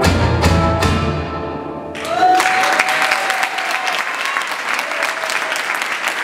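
A rock band's closing chord on electric guitars and bass ringing out over a few drum-cymbal hits and fading, then, about two seconds in, the audience starts applauding.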